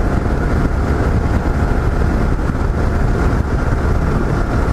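Yamaha XT 660Z Ténéré's single-cylinder engine running steadily at highway cruising speed, heard from the bike under wind rush over the microphone.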